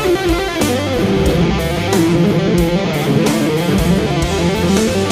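Live instrumental rock: an electric guitar plays a lead line of bent, wavering notes over bass guitar and drums.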